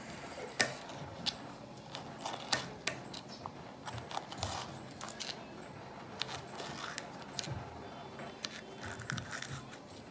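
Kitchen knife slicing a bell pepper into thin strips, the blade tapping the cutting board in sharp, irregular clicks.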